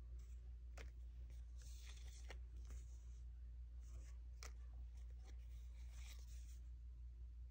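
Die-cut paper and vinyl stickers being handled and shuffled by hand: soft rustles with a few light clicks as the stickers are slid and tapped against each other, over a steady low hum.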